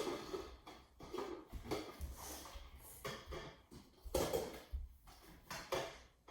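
Light plastic cups clacking and tapping as they are set down and stacked into a tower, in irregular short knocks, the loudest about four seconds in.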